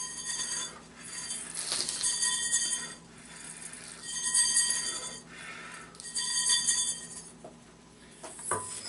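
Hulled rice being winnowed in a stainless steel bowl to clear away the loose husks: four bursts of hissing noise, each about a second long, with the metal bowl ringing faintly.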